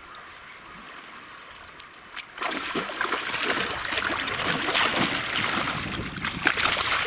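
River water flowing quietly, then about two and a half seconds in a hooked fish starts thrashing at the surface, splashing loudly and irregularly.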